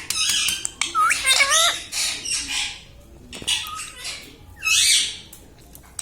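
Pet ringneck parrot squawking and chattering: a run of harsh calls with gliding pitch, the loudest a screech about five seconds in.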